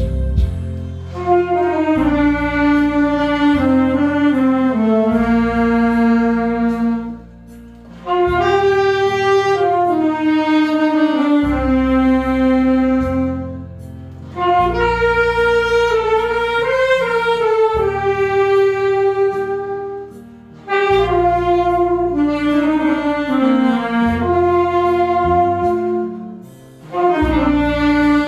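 Saxophone playing a slow melody of long held notes over a backing track with bass. It plays in four phrases, with a short pause between each.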